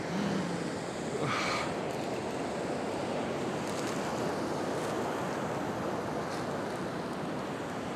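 Ocean surf and wind on the microphone, a steady rushing noise, with a short high-pitched sound about a second and a half in.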